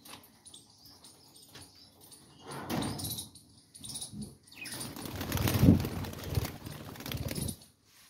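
Budgerigars flapping their wings in a cage, in irregular bursts of fluttering; the longest and loudest runs from about five to seven and a half seconds in.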